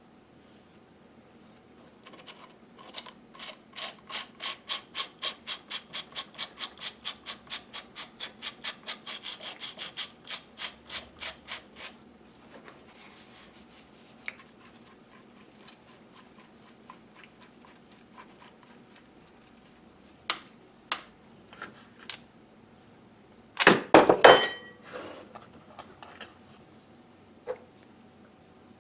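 Ratchet mechanism of a vintage brace (hand drill) being worked by hand: steady, ringing metal clicks at about three to four a second for some ten seconds as the pawl rides over the ratchet teeth. Later come a few separate metal clicks, then a short, louder metal clatter on the workbench.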